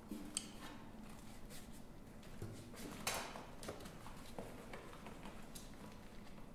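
Faint clicks, light knocks and taps of plastic and metal parts being handled and fitted by hand into a frame. There is one louder scraping rustle about three seconds in.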